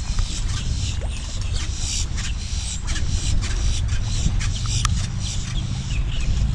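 Wind on the microphone, a steady low rumble, with scattered faint clicks and ticks over it.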